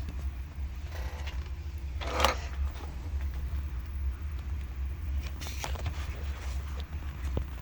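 Hands handling a Sony CCD-F40 8mm camcorder: scattered small clicks and scrapes, with one louder knock about two seconds in, over a steady low hum.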